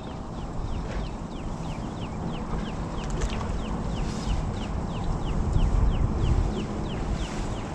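Wind buffeting the microphone with a low rumble that swells about six seconds in, over a bird calling in a steady series of short falling chirps, about three a second.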